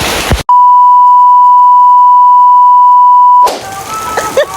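A loud, steady, single-pitched bleep lasting about three seconds, the kind edited over a sketch's soundtrack. It cuts in abruptly about half a second in, replacing a rain-like hiss, and stops just as sharply near the end.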